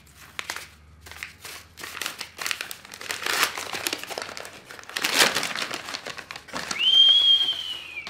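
Brown kraft-paper wrapping being torn and crumpled as a small parcel is unwrapped, with a steady run of rustles and crinkles. Near the end, a person whistles one short held note that rises then sags slightly, which he calls a failed whistle.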